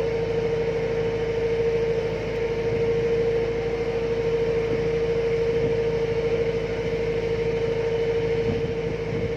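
A boat's engine running steadily, a constant drone with a strong steady hum over a low rumble.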